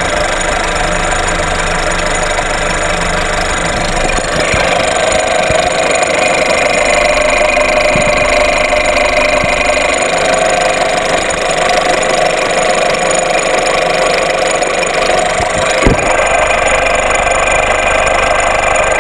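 VW 1.4 TSI (CAXA) petrol engine running with a loud metallic, nasty noise rather than a rattle. It gets louder about four seconds in, with a short knock near the end. The mechanic believes the noise comes from the high-pressure fuel pump.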